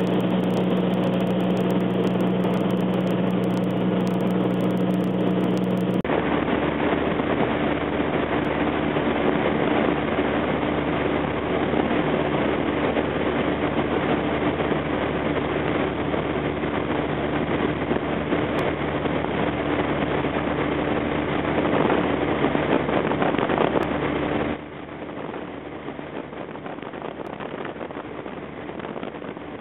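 Steady drone of a light aircraft's engine and propeller, heard inside the cabin with rushing air noise. The pitch of the hum shifts abruptly about six seconds in, and the sound drops noticeably quieter near the end.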